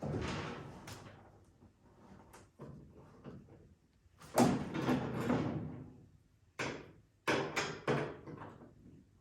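A series of hollow bangs and knocks from car body parts being handled and set down, each ringing out and fading over about a second. Five or so come in the span, with a loud one about halfway through and a quick cluster near the end.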